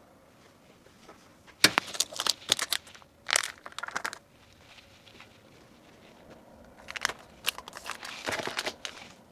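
Packaging crinkling and rustling in three short bursts as small gift items are handled and packed.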